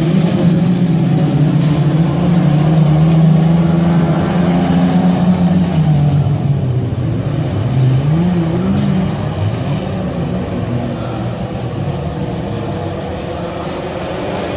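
Autocross cars of the standard up-to-1800 cc class racing, their engines revving hard. The engine pitch holds steady for several seconds, then drops and climbs again about halfway through as a driver lifts off and accelerates, and the sound eases off a little near the end.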